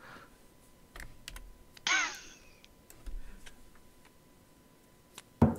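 Typing on a computer keyboard, a few scattered key clicks, as someone looks up a word. A brief voice sound about two seconds in, and a sharper knock near the end.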